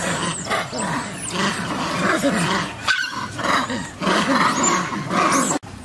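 Long-tailed macaques calling: a dense run of short, overlapping calls, several sliding down in pitch, broken off abruptly about three seconds in and again just before the end.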